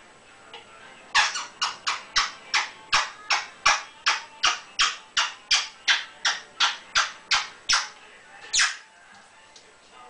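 African grey parrot making a rapid, even run of about two dozen sharp smacking clicks, about three a second, stopping near the end with one last click a moment later.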